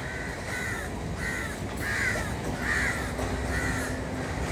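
Crows cawing over and over, a harsh call about every half second. Underneath is the steady low rumble of a Class S9 diesel multiple unit train moving along the platform.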